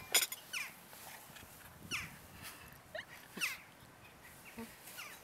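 Cutlery clinking against a china plate near the start, then a few short, falling high-pitched calls from an animal.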